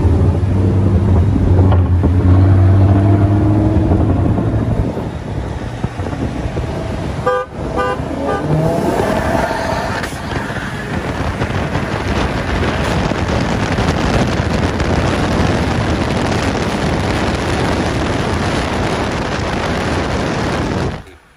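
Cars driving in traffic with a steady low engine drone, then a quick run of short car-horn toots about seven seconds in. After the toots an engine note rises briefly, and loud wind and road rush fill the rest until the sound drops away abruptly near the end.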